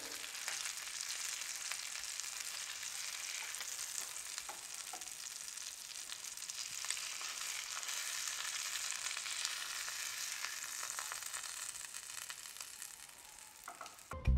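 Fish fillets sizzling in margarine and oil in a frying pan, with light scrapes of a spatula as they are lifted out. The sizzle fades near the end, and music starts right at the end.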